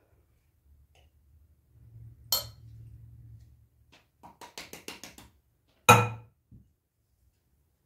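A drinking glass used as a flour measure clinks. First comes a sharp clink as flour is spooned into it with a metal spoon. Then about eight quick taps in a second as the upturned glass is knocked to shake the flour out, and a loud ringing clink near the end.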